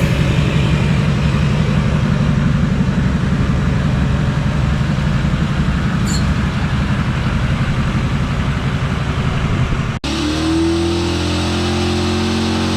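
Duramax V8 turbo-diesel running through a custom 4-inch titanium exhaust, a steady, even rumble. About ten seconds in it cuts off sharply to a different steady sound with held tones.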